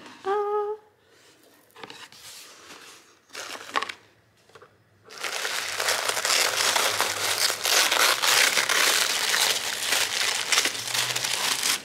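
A few soft taps and rustles, then from about five seconds in, loud continuous crinkling of white tissue paper being pulled open by hand inside a gift box.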